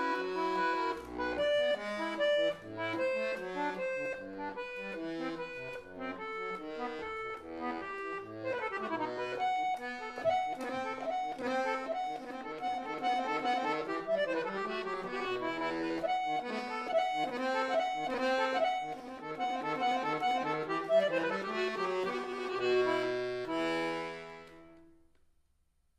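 Solo harpsichord playing a quick, ornamented Baroque passage of plucked notes, closing on a final chord that rings and dies away near the end.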